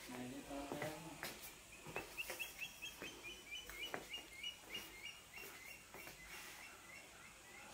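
A bird chirping quickly and repeatedly: short high chirps, about four a second, starting about two seconds in and fading toward the end. A few faint knocks come in between.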